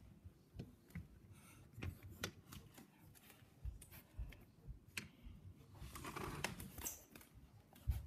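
Quiet, irregular clicks, taps and rustling from a handheld phone being moved about, with a longer rustle about six seconds in.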